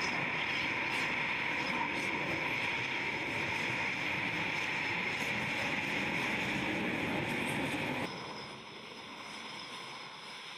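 Eurofighter Typhoon's twin EJ200 turbofans running at taxi power, a steady jet whine and rush. About eight seconds in the sound drops suddenly to a quieter, more distant jet hum.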